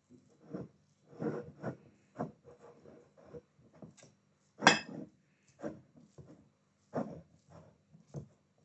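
Fingers crumbling soft white cheese on a ceramic plate: soft irregular rubbing and light taps against the plate, with one louder, sharper sound a little past halfway.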